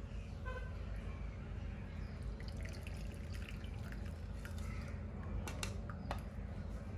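Ngapi (fermented fish paste) boiling in a pot of water, a soft steady bubbling with a few light clicks about five and a half seconds in.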